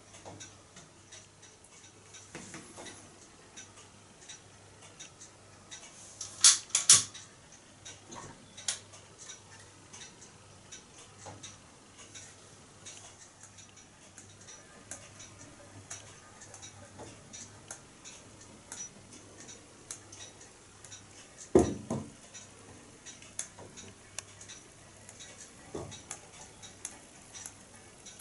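Homemade Kenneth Wells-design pop-pop boat running on bathwater, remarkably quiet: only light, irregular ticking, with two louder knocks about six and a half seconds in and another past the twenty-second mark.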